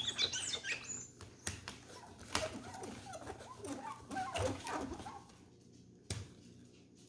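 Cloth and paper towel rubbing and squeaking on hand-mirror glass, with scratchy scrubbing, light clicks, and a sharp knock about six seconds in.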